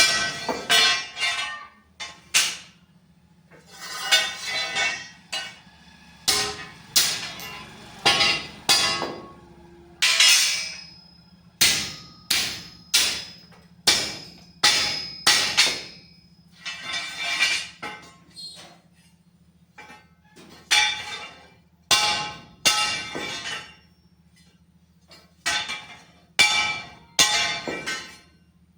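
A hammer striking a steel angle-iron window frame, blow after blow at roughly one a second, each ringing briefly like struck metal. A faint steady low hum runs underneath.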